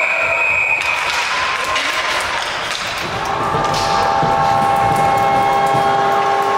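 Goal horn sounding, a chord of several steady pitches that starts about three seconds in and holds. A brief high steady tone comes before it in the first second, over general rink noise.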